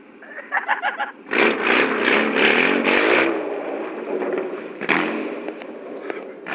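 Car engine revving hard as the car pulls away and drives off, starting loud and rough about a second in.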